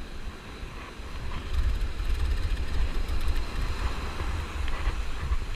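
Wind buffeting the microphone in a gusty low rumble, over the steady wash of breaking surf.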